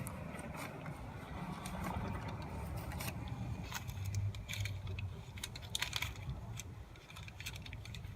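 Small metal items jingling and clicking as they are handled: scattered light clinks, thickest in the second half, over a faint low hum.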